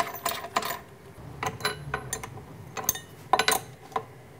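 Hex key clinking and clicking against steel bolt heads and the spindle's metal mounting plate while the spindle is being bolted to the mill head: a string of irregular sharp metallic clicks.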